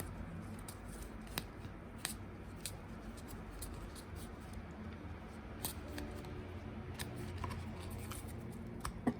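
Light handling noise: a few scattered soft clicks and taps over a low steady hum.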